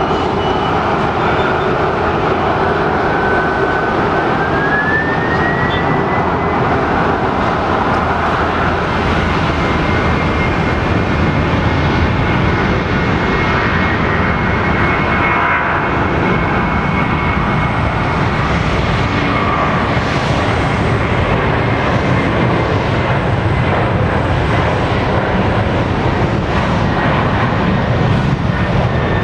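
Boeing 767-300's twin jet engines at takeoff power during the takeoff roll: a loud, steady roar. A thin whine rises in pitch about four to six seconds in and then holds steady.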